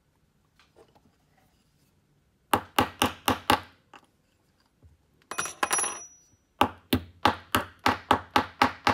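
Small hammer tapping a metal punch on a steel anvil block, setting the rivet that joins a new solenoid link in a slide projector's autofocus mechanism. There are two runs of quick, even taps at about four a second: five, then about nine. Between them comes a short scraping rattle with a thin ring.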